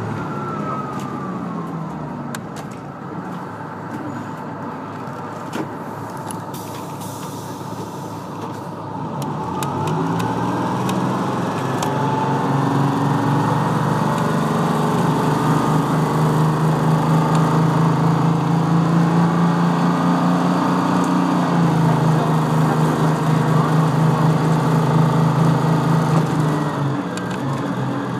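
GM New Look transit bus heard from inside, its diesel engine and drivetrain whine falling in pitch as the bus slows. Quieter running for several seconds follows, then the pitch rises as the bus pulls away and holds a loud steady drone under load. There is a brief dip about two-thirds of the way through, and the bus eases off near the end.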